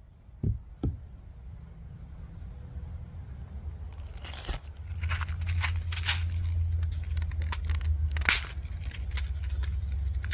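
Two dull hammer knocks about half a second in. Then scraping, crackling handling noise close to the microphone over a low rumble that grows louder from about halfway.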